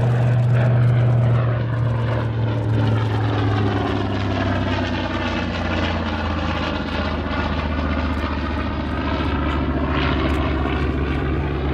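Grumman TBM Avenger's Wright R-2600 twin-row radial engine and propeller droning loudly as the aircraft flies a low pass. The engine note drops in pitch about four seconds in as it goes by.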